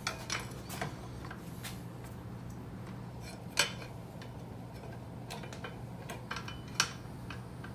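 Scattered light metallic clicks and taps as the shifter shaft is slipped through its housing on the transmission, with a sharper click about three and a half seconds in and another near the end.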